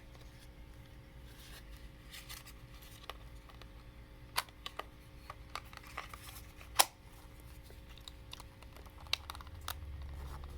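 Small plastic clicks and taps from a toy Advent Deck card case and its cards being handled, with one sharp click about seven seconds in the loudest.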